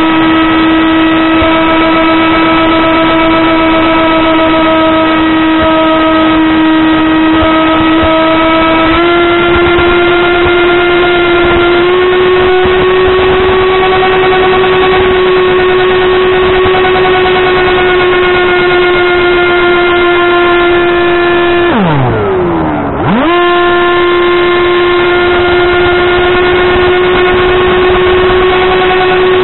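An AR Wing FPV flying wing's 2208 2600 kV brushless motor driving a 6x4 propeller, heard from on board as a loud, steady whine. The whine steps up slightly in pitch twice in the first half. About three quarters of the way in it dives steeply in pitch and swoops back up within about a second as the motor winds down and spins up again.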